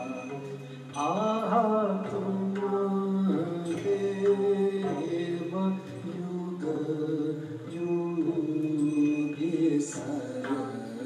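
Slow Charya devotional chant: a solo voice sings the deity mantra-song of a Newar Buddhist ritual dance in long held notes that bend between pitches, with a few sharp strikes along the way.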